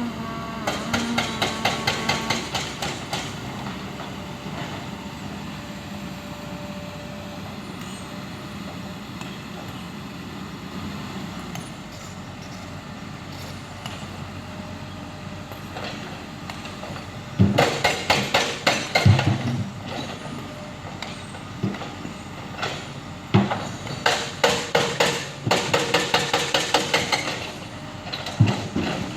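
Excavator engine running steadily, with several bursts of rapid, rhythmic metallic clanking, the loudest a few seconds long about a third of the way from the end.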